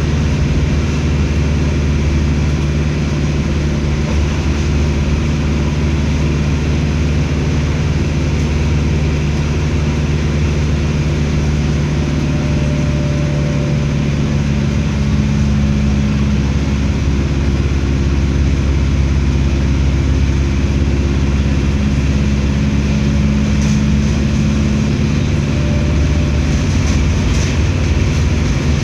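Mercedes-Benz OF 1721L BlueTec 6 bus's diesel engine running steadily, with a faint tone that comes and goes in the second half.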